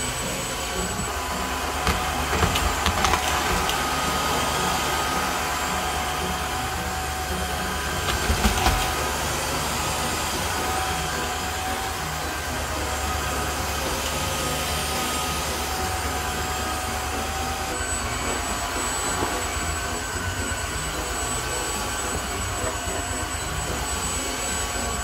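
Tineco Floor One S5 Combo wet-dry stick vacuum running steadily with a thin whine over its motor noise, sucking up spilled vegetable juice, cereal and other debris from the floor. There are louder crackling bursts about two to three seconds in and again around eight seconds in, as solid bits go up the nozzle.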